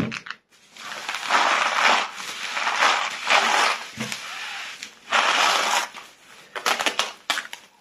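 Plastic bubble wrap being pulled open and scrunched by hand, making a loud crackling rustle in long bouts. Near the end come a few sharp clicks.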